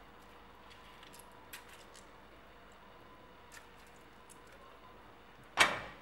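Faint squelches and soft ticks of a lemon half being squeezed by hand over a pan of potato filling. Near the end, a short, loud scrape of a spatula as the filling starts to be stirred in the pan.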